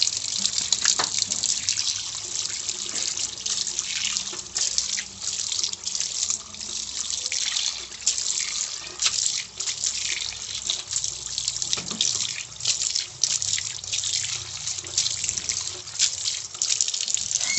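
Water splashing and trickling, with many irregular small splashes and drips throughout.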